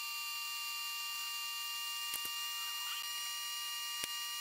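A steady, high electrical whine made of several constant tones, with two faint ticks, one about halfway and one near the end.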